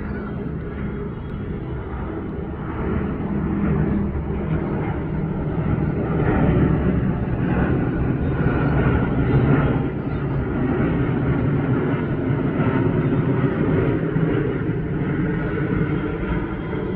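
Boeing 787-8 jet airliner's engines running, a steady rumble that grows louder about six seconds in and holds.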